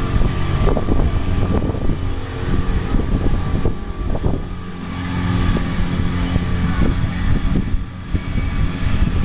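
Boat's motor running steadily, a constant low hum with rough, uneven noise over it.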